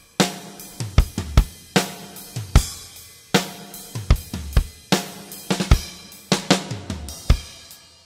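Acoustic drum kit played solo: kick drum, snare and toms struck in uneven fills rather than a steady beat, with Sabian cymbals crashed and left ringing over them about three seconds in and again near six seconds.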